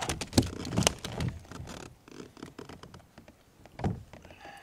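Knocks and thunks on a plastic kayak as a freshly caught bass is handled and unhooked, several sharp knocks in the first two seconds, scattered lighter clicks, then one more thump near the end.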